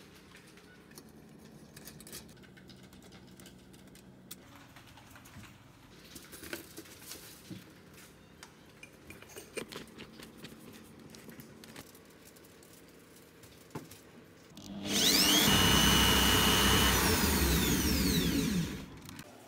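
Corded electric drill spinning a jar lid mounted on a bolt inside a foil-lined cardboard box, a homemade cotton candy spinner: light handling clicks and taps, then about three-quarters of the way in the drill speeds up, runs for about four seconds and winds down near the end.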